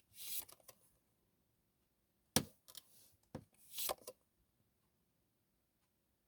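Tarot cards being handled: brief papery swishes and a couple of sharp clicks as cards are moved and laid down.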